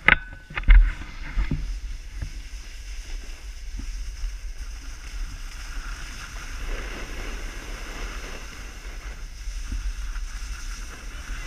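Snowboard running over packed snow, a steady scraping hiss with wind buffeting the microphone, and a few sharp knocks in the first second and a half.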